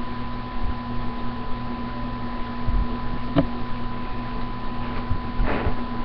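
Steady electrical hum with a faint high tone held underneath, broken by a single sharp click just past halfway and a brief rustle near the end.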